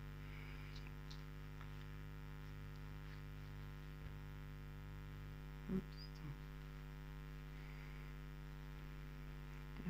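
Steady electrical mains hum, with a few faint ticks and soft rustles and one brief soft bump a little before six seconds in.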